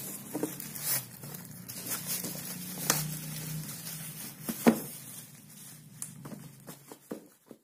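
Black plastic parcel wrapping rustling and crinkling as it is handled and turned over, with scattered clicks and one sharp knock about two-thirds of the way through.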